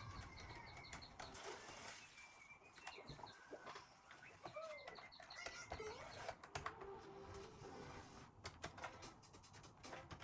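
Faint bird chirping in the background, short repeated calls, with a cluster of soft light clicks near the end.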